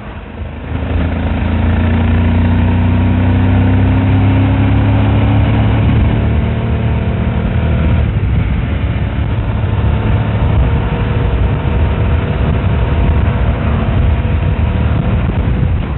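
Suzuki V-Strom DL1000's V-twin engine pulling away about half a second in. Its note rises slowly for several seconds as the bike gathers speed, then runs on steadily under a constant rush of noise.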